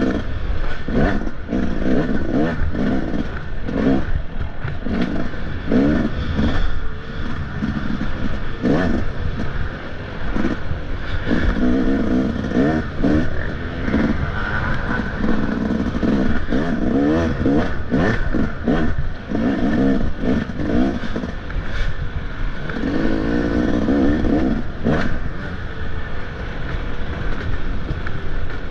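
Motocross dirt bike engine revving hard and backing off again and again as it is ridden through a race, with frequent rattling knocks over the engine note.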